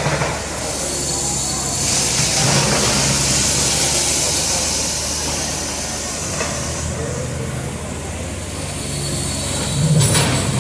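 An engine running steadily, with a loud hiss through the middle and a brief louder sound near the end.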